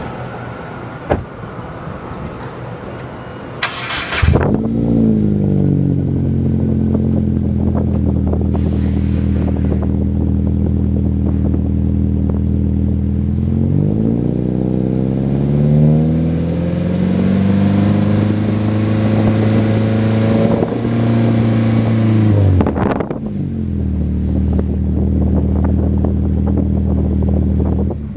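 2017 Subaru Impreza Sport's flat-four engine through a full muffler-delete exhaust: it cranks on the starter and catches about four seconds in, then idles. The engine is revved up and eased back a few times in the middle, settles back to idle, and is shut off near the end.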